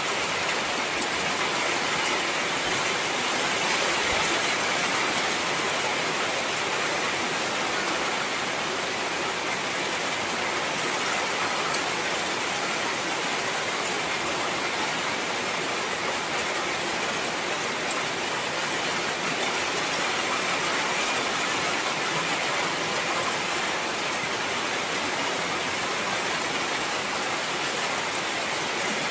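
Heavy rain falling steadily, a dense, even hiss of downpour with no let-up.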